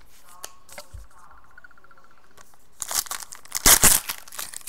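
A trading-card pack being torn open and its wrapper crinkled by hand. It starts after a few light taps, about three seconds in, and is loudest near the end.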